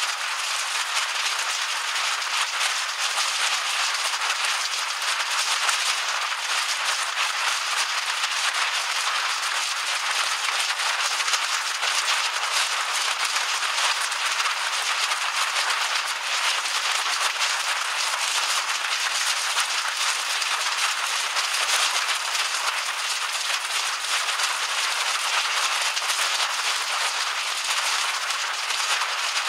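Hailstorm: hailstones and heavy rain pelting a concrete driveway and lawn, a dense, steady rattle of countless small hits.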